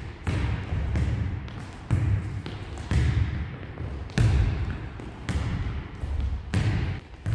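A small football being kicked and bouncing on a wooden sports-hall floor: six sharp thuds about a second apart, each echoing in the large hall.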